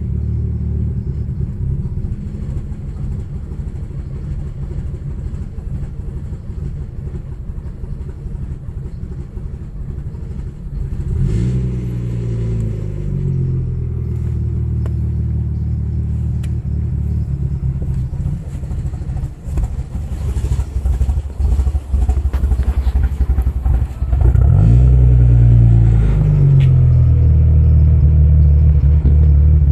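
Audi B5 S4's 2.7-litre twin-turbo V6 idling cold with a misfire. Revved briefly twice, about a third of the way in and again near the end, and after the second rev it settles to a louder, steady idle.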